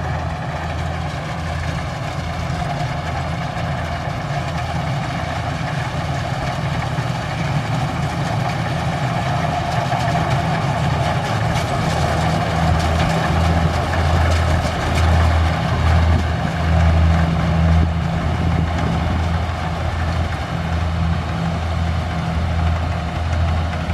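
Kubota rice combine harvester's diesel engine running steadily: a low drone with a mid-pitched mechanical whir over it, growing a little louder past the middle.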